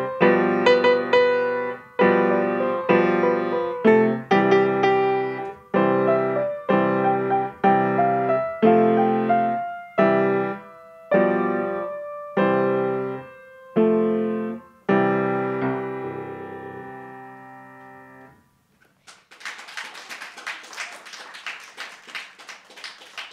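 Grand piano played in slow block chords struck about once a second, the last chord held and left to ring until it fades away. About three-quarters of the way in, audience applause starts and continues.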